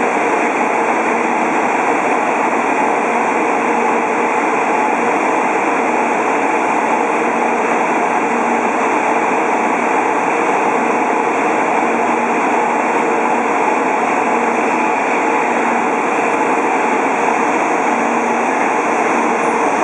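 N700 Series Shinkansen train running along the platform, a loud, steady rumble and rushing hiss with a faint hum and no rise or fall in level.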